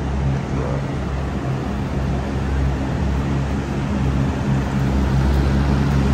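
Ride-on floor scrubbers running across a marble floor: a steady low mechanical hum over a constant hiss. It grows louder in the second half as one machine passes close.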